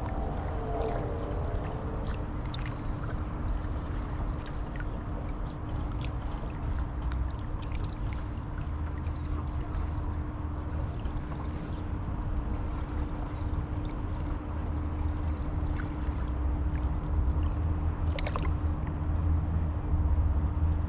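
Waikato River water flowing and lapping, over a steady low rumble and a constant hum that grow louder toward the end. A short wavering call sounds at the start.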